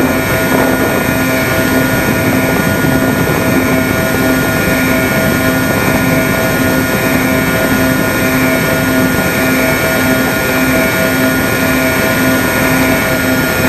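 Twin 2212 1100KV brushless motors with APC 8x6 propellers on a Sonicmodell Binary model plane at steady cruise: a constant propeller drone that pulses slightly a few times a second, over rushing air, heard from the plane's own on-board camera.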